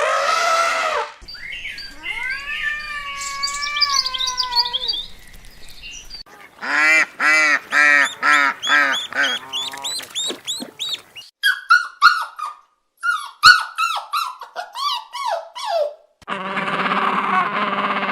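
A string of different animal calls, one after another: a short call, then one long call that rises and falls in pitch, then a run of about three to four short calls a second, then quick falling chirps, and a steady, even call near the end.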